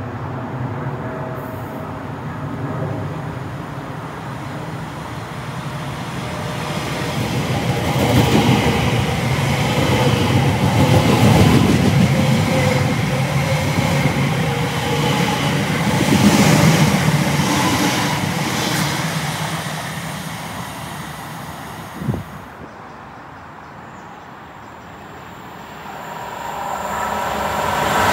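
Class 345 electric multiple unit running along the line, its rumble building to a peak and then fading. About two-thirds of the way in, the sound cuts off with a click, and another train is heard approaching near the end.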